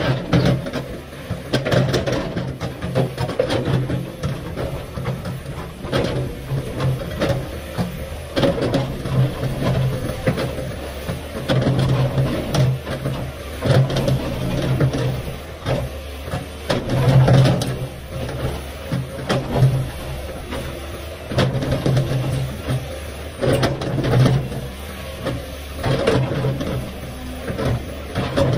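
Komatsu PC500LC hydraulic excavator's diesel engine running under load, its note swelling and easing every few seconds as the arm works. Over it the bucket scrapes and clatters through rocky earth and stones, with many short knocks.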